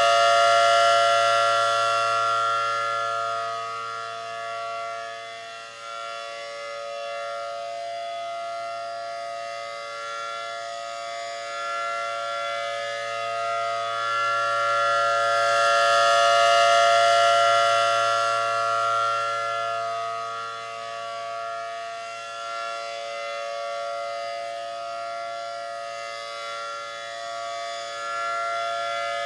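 ACA Allertor 125 electronic outdoor warning siren sounding its steady Full Alert tone, with no rise or fall in pitch. Its loudness swells and fades as the rotating head sweeps round, peaking near the start and again about sixteen seconds later.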